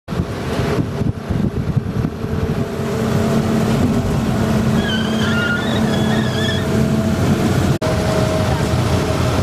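A bus engine running with road and wind noise inside a moving bus. A short high wavering tone sounds about halfway through, and the sound drops out for an instant just before the eight-second mark.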